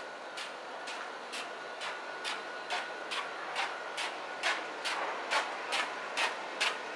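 Footsteps of someone walking on a concrete alley, a little over two steps a second, growing louder in the second half. A faint steady high hum sits under the first few seconds.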